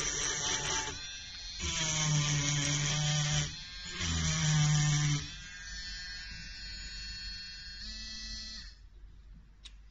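Electric rotary tool with a diamond burr engraving stone: a high whine that comes in three louder stretches, then runs more quietly and stops about nine seconds in.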